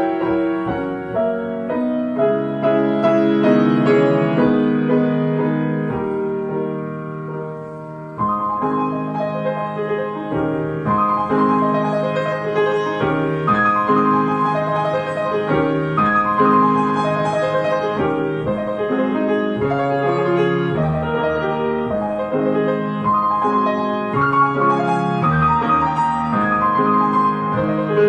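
Solo grand piano being played continuously. The playing eases off about six seconds in and comes back louder at about eight seconds.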